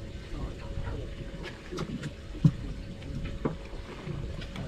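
Sea water slapping around a drifting boat's hull with wind on the microphone, and light clicks and knocks of fishing tackle as a float is clipped onto the line by its snap swivel. One sharper knock comes about halfway through.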